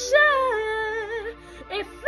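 A woman singing a long, wavering melismatic line of a gospel song over a steady held backing chord; her voice fades out about a second and a half in.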